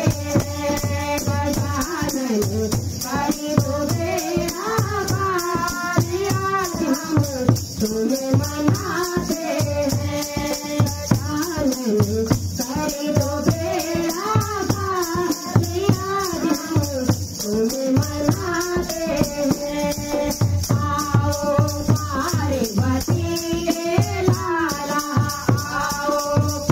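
Women singing a Garhwali kirtan bhajan together to a dholak drum and the steady jingling of a chimta (iron fire tongs with metal jingles), in a brisk even rhythm.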